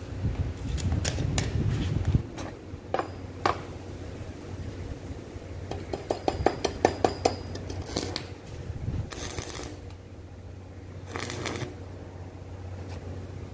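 Metal rods and a stainless steel grill basket clinking and knocking as they are set in place, then a quick run of sharp taps about halfway through. Two short crackling bursts of a stick welder near the end as the rod is tack-welded to the grill.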